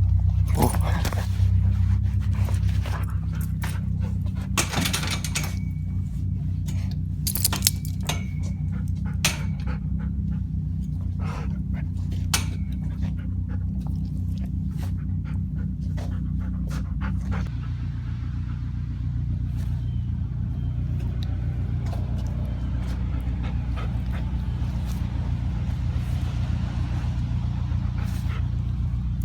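Car engine idling with a steady low hum that shifts down a little about two-thirds of the way through, with scattered clicks and knocks in the first half.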